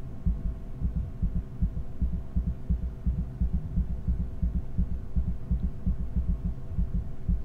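Low ominous drone of a horror film's soundtrack: a dense, uneven throbbing rumble in the bass with faint steady tones held above it.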